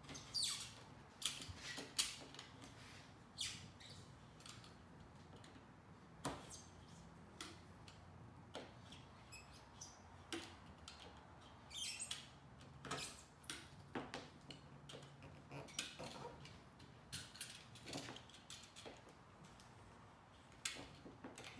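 Razor blade cutting along the old rubber weather seal of a Toyota Land Cruiser 80-series tailgate glass while the seal is pulled back: faint, irregular short scrapes and clicks.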